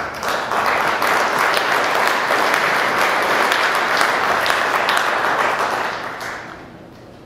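Audience applauding with steady clapping that dies away about six seconds in.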